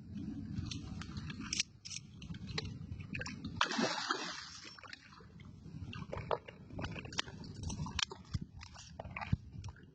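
Water splashing and sloshing as a big hooked fish thrashes at the surface of a fishpond while being played in. There are scattered sharp clicks throughout and a louder splash about four seconds in.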